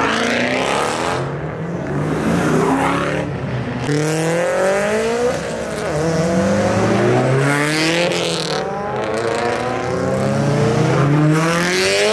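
Performance cars accelerating hard past spectators, the engine note climbing and dropping again and again through the gear changes. First a Shelby GT500's supercharged V8 pulls away, then a turbocharged Subaru WRX STI does the same.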